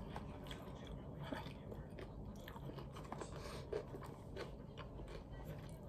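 A person chewing food close to the microphone, with faint, irregular mouth clicks.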